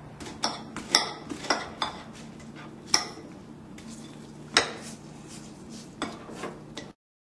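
Hard objects clinking and knocking, about ten sharp irregular clinks, over a steady low hum. The sound cuts off abruptly near the end.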